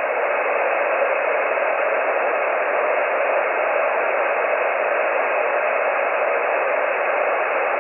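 Amateur radio transceiver on the 20-metre band giving out steady band noise from its speaker: the hiss of an open channel with no station transmitting. The hiss is even and has no highs.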